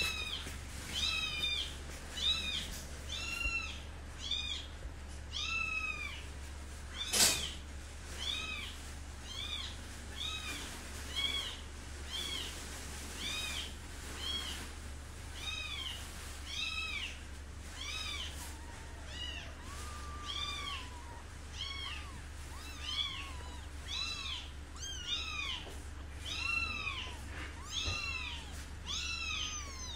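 Newborn kitten mewing over and over, short high-pitched cries about once a second. A sharp click about seven seconds in, and a steady low hum underneath.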